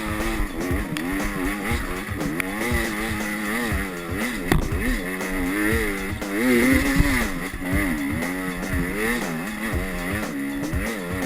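Enduro motorcycle engine revving up and down over and over as the throttle is worked, with knocks and thumps from the ride.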